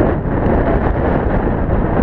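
Wind buffeting the camera microphone: a loud, steady rush with no words or distinct events.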